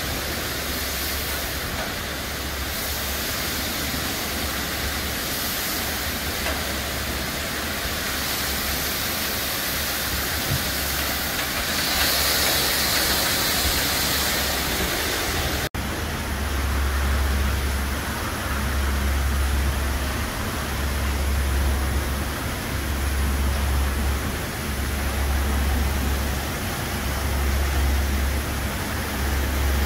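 Brush gantry truck wash running on a tractor-trailer: a steady hiss of water spray over a low machine hum. After a short dropout just past halfway, the low rumble swells and fades about every two seconds as the gantry works at the trailer.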